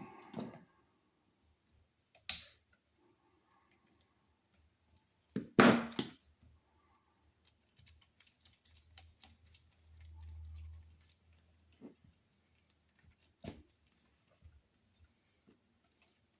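Scattered small clicks and taps of hand tools and copper wires being worked onto a wall receptacle's terminal screws, with a louder clatter about five and a half seconds in and a run of quick light ticks after it.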